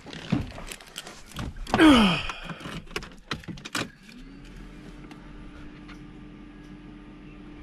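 Clicks and knocks of someone settling into a car's driver's seat, with a loud falling squeak about two seconds in. About four seconds in, a small electric motor in a 1991 Toyota Celica GT spins up and then hums steadily as the ignition is switched on.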